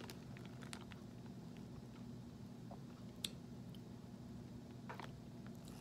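Faint chewing of a soft chocolate-and-mallow biscuit, with a few soft clicks, over a steady low hum.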